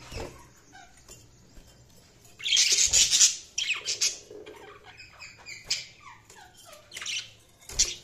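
Budgerigars chattering: runs of short falling chirps broken by loud scratchy calls, the loudest about two and a half seconds in and again near four seconds, with a few shorter ones later.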